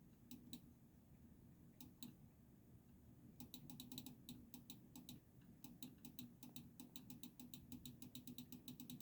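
Quiet tapping of computer keyboard keys: a few single taps, then a quick run of taps, about four or five a second, from about three seconds in.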